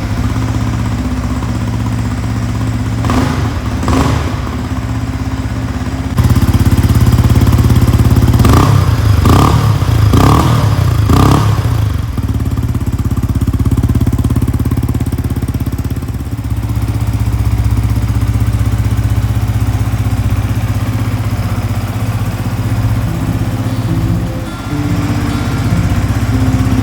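Yamaha XSR125's single-cylinder four-stroke engine idling through a WR'S short oval aftermarket silencer, blipped twice about three seconds in and then four more quick blips a few seconds later, each rev rising and falling back to idle. It gets louder about six seconds in.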